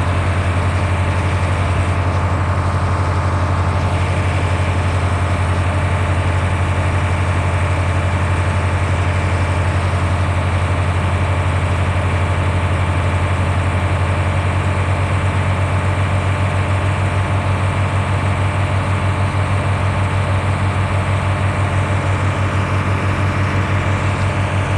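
Heavy engine running steadily at constant speed, a low even drone with a fast pulse, driving the pump that churns and empties a manure pit.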